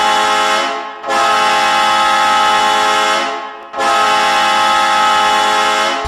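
Hockey arena goal horn blowing in long, loud blasts, with short breaks about a second in and again about three and a half seconds in.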